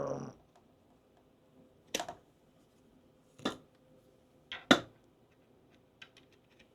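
A few sharp separate clicks and knocks as an Olight PL Mini 2 weapon light and its magnetic USB charging cable are handled and the charger is put onto the light. The loudest is a close double click about two-thirds of the way through.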